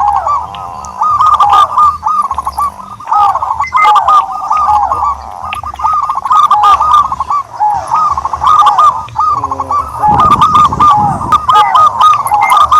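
Doves calling continuously in quick, overlapping series of short cooing notes. A brief low rumble comes in about ten seconds in.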